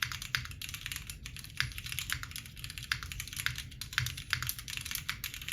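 Fast typing on a custom mechanical keyboard, a top-mount build with its plate screwed directly to the top case: a quick, steady run of key clacks, several keystrokes a second.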